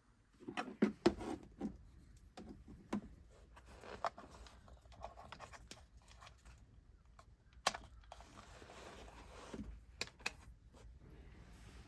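Scattered light clicks, knocks and rustling of objects being handled in a small room, a cluster of them about a second in and a few sharp clicks later.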